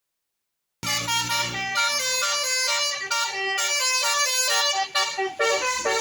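Bus telolet horn playing a quick tune of shifting notes, starting about a second in after silence, with short breaks between phrases near the end.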